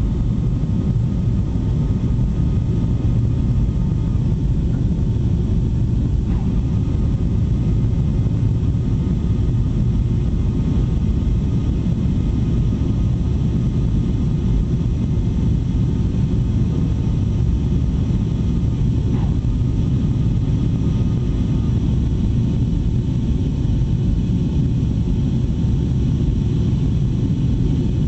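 Airliner cabin noise: a steady low rumble of jet engines and airflow heard from a seat beside the wing, with a faint high whine that comes and goes.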